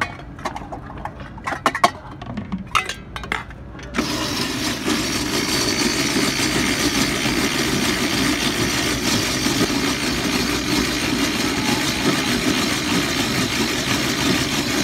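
A few sharp knocks and clatters, then about four seconds in an ice-shaving machine starts suddenly and runs with a steady, loud grating noise as its blade shaves a block of ice into snow.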